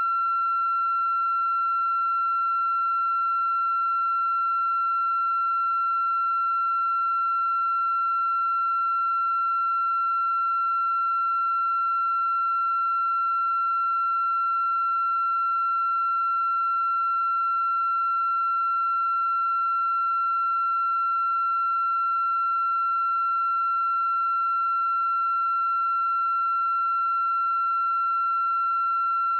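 A steady, high-pitched electronic tone held without change, with fainter overtones above it.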